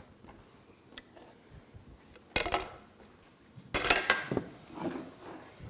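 Dishes and cutlery clattering on a kitchen counter: two short clatters about a second and a half apart, the second longer, with a few faint clinks around them.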